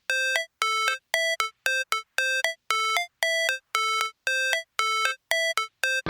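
Music: a melody of short, separate notes, about two a second, each cut off cleanly with silence between.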